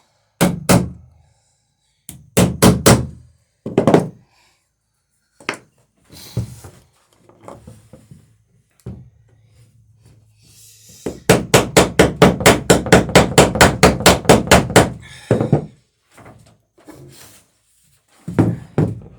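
Hammer blows riveting the wooden planking of a dory: a few separate heavy strikes in the first four seconds and some lighter taps, then a fast even run of about six or seven blows a second for nearly four seconds.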